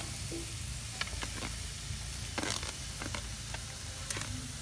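Raw chicken pieces dropping from a basket into a hot pan over a wood fire, landing with a handful of short sharp knocks over a steady low sizzle.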